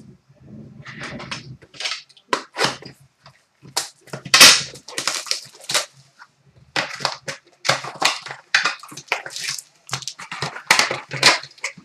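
Plastic wrapping crinkling and tearing in quick irregular rustles as a hockey trading-card box and pack are opened and the cards handled, loudest about halfway through.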